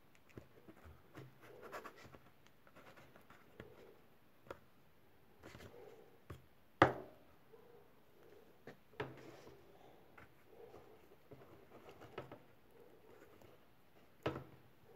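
Cardboard replica submachine gun being handled: scratching and rubbing of cardboard and paper, broken by scattered sharp clicks. The loudest click comes about seven seconds in, and another comes near the end.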